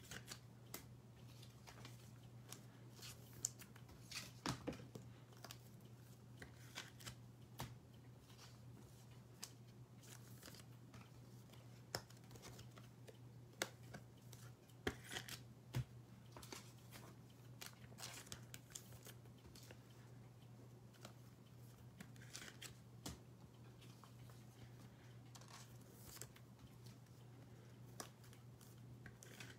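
Faint, scattered clicks and short rustles of trading-card packaging being handled, over a steady low hum.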